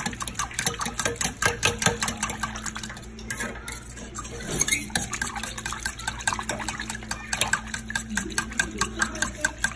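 A metal utensil stirring thick brown gravy in a stainless steel saucepan, clicking and scraping against the pot in a quick, even rhythm while the gravy bubbles near the boil.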